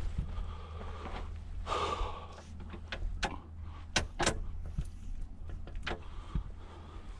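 Hands-on handling noises while working on a hydraulic cylinder: a brief rustle about two seconds in, then a few scattered sharp clicks and knocks, over a steady low hum.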